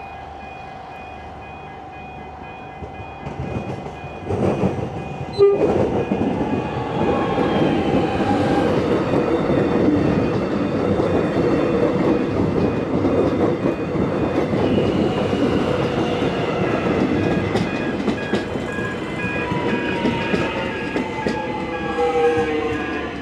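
Electric suburban train passing close by. Its rumble and wheel noise build about four seconds in, after a couple of sharp knocks, and stay loud, with a falling whine near the end.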